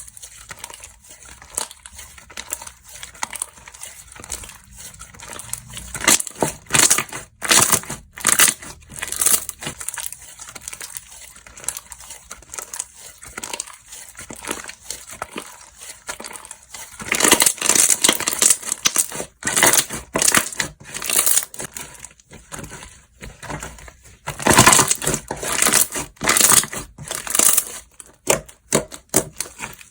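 Slime being squeezed, stretched and pressed by hand, giving a run of irregular crackles and pops. The crackling gets louder and denser about halfway through and again near the end.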